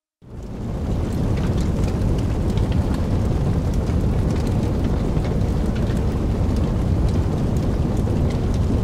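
Fire sound effect: a steady low rumble of flames with scattered small crackles, fading in over the first second.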